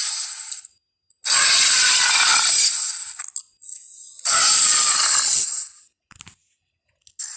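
Jurassic Park Tyrannosaurus rex sound effects: a series of loud, rasping calls, each one to two and a half seconds long, with short silences between them. The last full call starts soft and turns loud about halfway through, and the next begins near the end.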